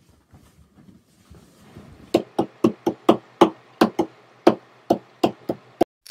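About a dozen sharp knocks in quick, slightly uneven succession, roughly three a second, beginning about two seconds in after some faint rustling.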